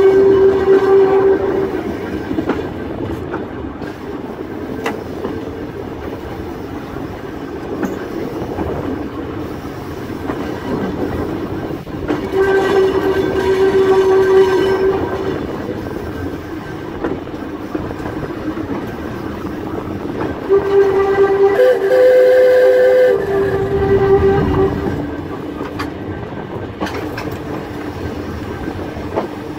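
A Volk's Electric Railway narrow-gauge electric car running along its track, with a steady rumble and occasional clicks from the wheels on the rails. A steady high tone sounds three times over it: briefly at the start, for a couple of seconds midway, and longest, about four seconds, near the end, where it briefly steps up in pitch.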